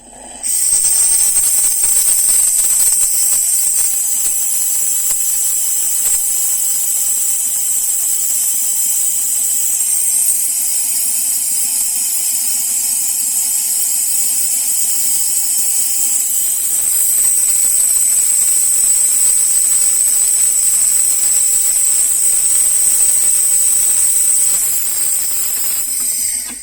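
Klarstein Espressionata Gusto espresso machine's steam wand venting steam in a loud, steady hiss that starts about half a second in and cuts off near the end. The steam is being let off to bring the boiler pressure down to the espresso mark before brewing.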